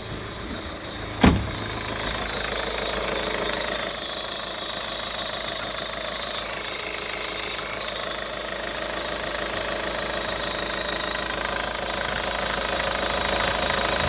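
Ford Focus 1.8 turbodiesel (C9DB) engine running steadily at idle. There is a single sharp knock about a second in.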